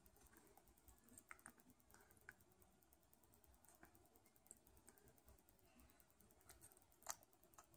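Near silence, with faint scattered soft clicks and rustles and one sharper click about seven seconds in.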